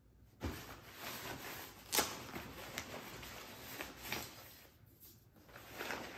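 Rustling and knocking as gear is handled inside a nylon backpack, with a handful of sharp clicks; the loudest comes about two seconds in.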